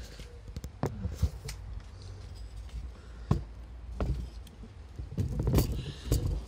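Scattered clicks and knocks as a laptop is shifted on an aluminium laptop stand and the stand's hinged arms are handled, with a cluster of louder knocks near the end.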